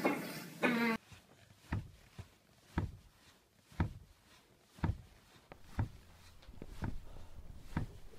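A child's drawn-out vocal sound that breaks off about a second in, then steady thumps about once a second as the child rocks back against a car seat, with a low rumble underneath that grows from about halfway.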